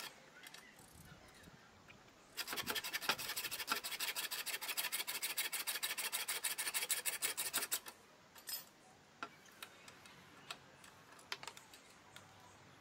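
Hacksaw cutting through an old rusted steel bolt whose nut would not come off, in quick, even strokes for about five seconds, starting a couple of seconds in. A few scattered light clicks of metal being handled follow.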